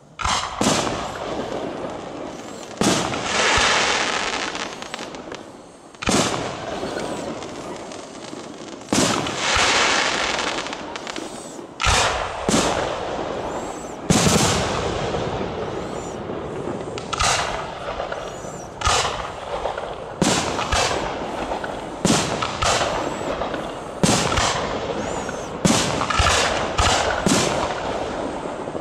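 Aerial firework shells bursting one after another, each sharp bang followed by a long fading tail. The bangs come a few seconds apart at first, then quicker, about one a second or faster, in the second half.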